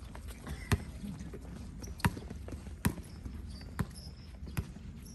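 A basketball being dribbled on a hard court: five sharp bounces about a second apart.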